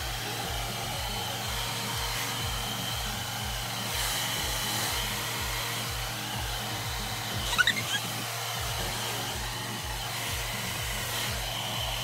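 Budget handheld hair dryer running steadily, a motor hum with rushing air. A brief sharp sound rises over it about seven and a half seconds in.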